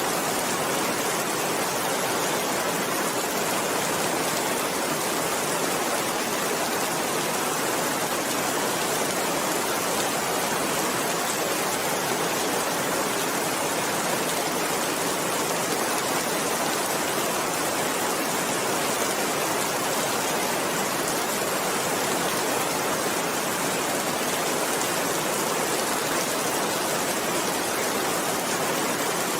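Steady rain falling, an even, unbroken hiss with no thunder or pauses.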